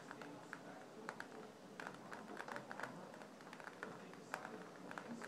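Rain striking the window glass during a severe thunderstorm: irregular sharp taps, several a second, over a steady hiss.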